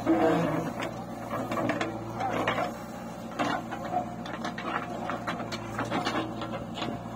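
JCB 3DX backhoe loader working, its diesel engine running steadily under a clatter of mechanical clicks and knocks. A loud burst just after the start is the backhoe bucket tipping soil into a steel tractor trolley.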